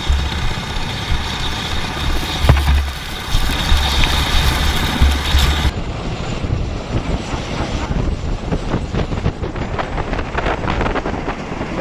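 MV-22 Osprey tiltrotor running on the ground with its rotors turning, loud and steady, its rotor wash buffeting the microphone with gusts. About halfway through, the sound changes abruptly and goes duller.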